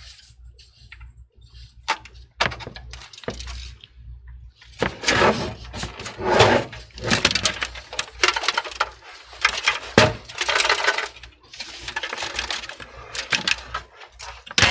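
Hard plastic and metal parts of a desktop computer case being handled: sharp clicks and knocks, then a long stretch of dense clattering and rattling from about five seconds in.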